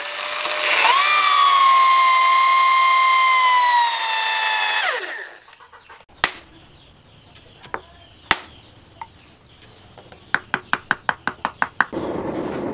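Electric drill whining at a steady pitch as it bores into the end of a wooden knife handle. The pitch dips briefly as the bit bites, and the motor winds down when the trigger is released about five seconds in. A few sharp taps follow, then a quick run of about a dozen clicks, and near the end a steady rushing noise begins.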